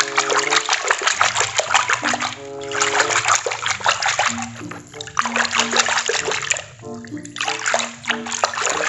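Water splashing and sloshing in a basin as a hand scrubs a plastic toy animal through pink, sudsy water. Background music with a simple sustained melody plays underneath.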